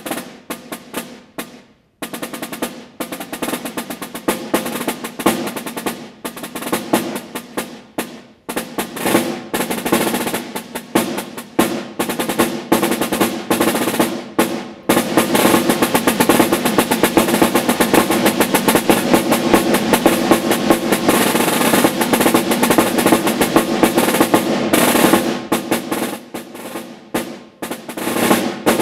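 Rudimental snare drum solo played with sticks: fast patterns of strokes broken by short pauses, building into a loud, unbroken roll lasting about ten seconds from about halfway through, then back to separate strokes near the end.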